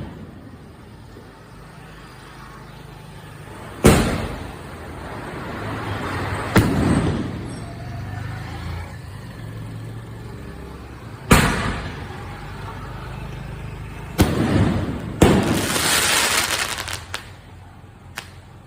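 Ayyan Fireworks 'Fun Club' 2-inch 24-shot multi-shot cake firing: sharp bangs a few seconds apart, about five big ones, each trailing a rumbling echo, the last big one followed by a longer hiss.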